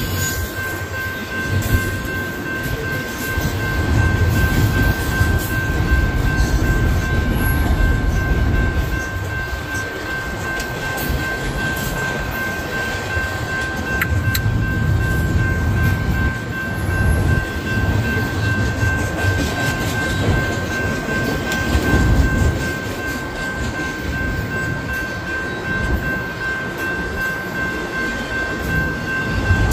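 Double-stack intermodal container train rolling past over a grade crossing: steady rumble and clatter of the loaded well cars on the rails, with a steady high tone running throughout.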